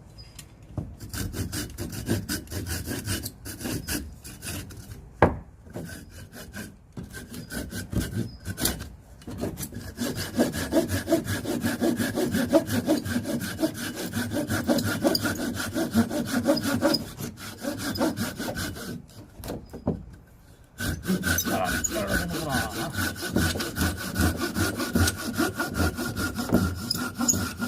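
Hand saw cutting a bone-dry firewood log in repeated back-and-forth strokes. The strokes are lighter and broken up at first and grow steadier and louder about a third of the way in, with a short stop about two-thirds of the way through. The wood has dried hard, so it cuts slowly.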